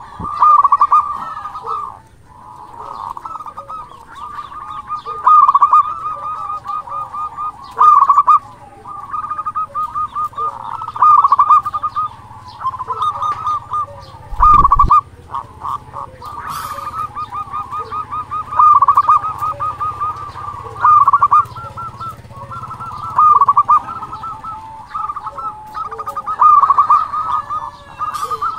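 Local-strain zebra dove (perkutut) singing over and over, each phrase a fast run of short cooing notes, with short pauses between phrases. A brief low thump about halfway through.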